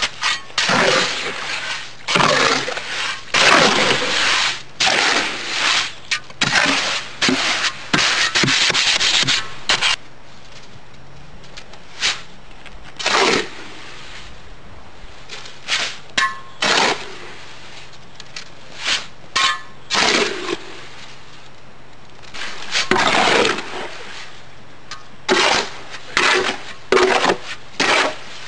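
A shovel scraping and chopping through wet gravelly concrete mix in a wheelbarrow, in repeated irregular strokes with short pauses between them.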